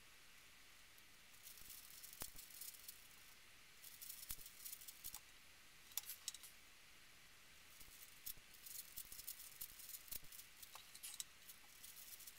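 Plastic 5x5 puzzle cube being turned by hand: clusters of quick clicking and rattling turns, starting about a second and a half in, with short pauses between the bursts.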